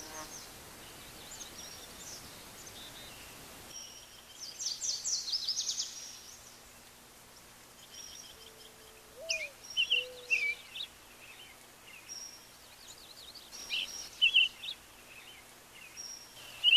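Small birds chirping and singing in short, repeated high phrases over a faint steady hiss.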